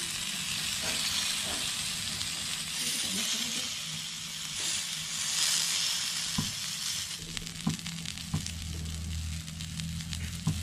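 Skewered goat testicles sizzling steadily on a hot oiled griddle plate, with a few sharp clicks in the second half.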